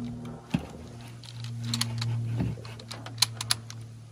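Scattered sharp metallic clicks and light rattles from a Chinese Type 53 bolt-action carbine being handled, over a steady low hum.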